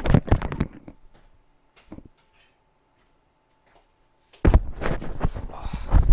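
A few light clicks and clinks of small hard objects being handled, then a quiet stretch with one more click. Louder handling noise comes in near the end.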